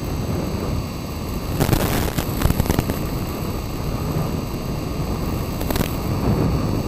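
Steady rushing noise of an FPV model airplane in flight, heard through its onboard audio link, with bursts of crackling at about a second and a half to three seconds in and again near six seconds.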